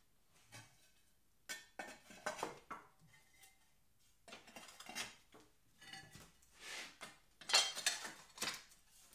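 Fire bricks being set down and pushed into place on a board, making a series of short clinks, knocks and scrapes as they meet each other. The knocks are busiest near the end.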